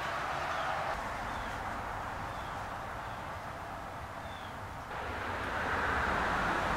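Steady background noise with a few faint, short high chirps; it shifts and grows a little louder about five seconds in.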